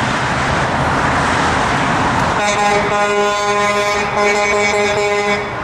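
Steady rush of highway traffic. A vehicle horn sounds one long blast of about three seconds, starting about two and a half seconds in.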